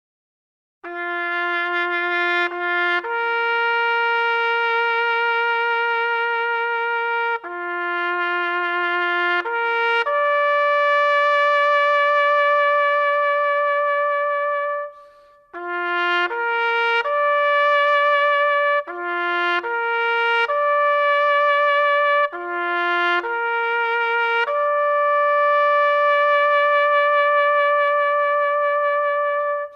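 Background music: a slow solo melody of long held notes with a slight vibrato, pausing briefly about halfway through.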